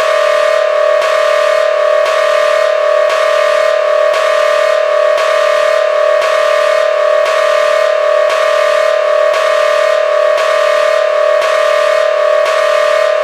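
Demo emergency alert (EAS-style) alarm tone: a loud, steady pair of electronic tones, one lower and one higher, pulsing in an even beat about twice a second.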